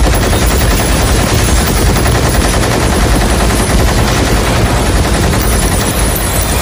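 Heavy multi-barrelled rotary machine gun firing in one unbroken, very rapid stream of shots, a loud film sound effect.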